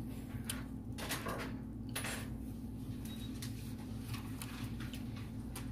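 Soft clicks and light knocks of food containers and utensils being handled while eating, over a steady low hum.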